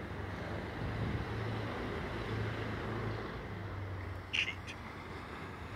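Steady wash of surf breaking on the beach, with wind on the microphone. Two short high chirps come close together about four seconds in.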